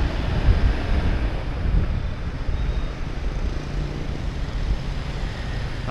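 Steady road traffic noise with wind rumbling on the microphone.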